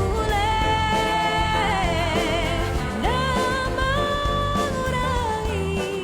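Pop music with a singer holding long, wavering notes over a steady backing; a new note slides up about three seconds in.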